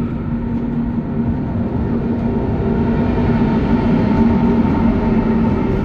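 A train running, a steady rumbling drone with a strong low hum, growing slightly louder over the first few seconds.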